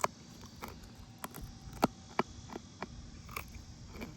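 Faint, irregular mouth clicks and soft chewing sounds: about a dozen small ticks scattered through, one a little louder about two seconds in.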